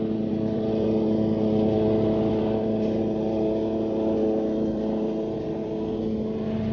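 Walk-behind petrol lawn mower engine running steadily at a constant pitch, swelling slightly and easing off as the mower moves across the lawn.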